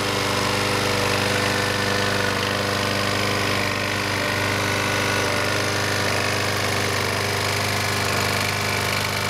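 Briggs & Stratton single-cylinder engine on a Troy-Bilt push lawn mower running steadily, noisy because it is low on oil.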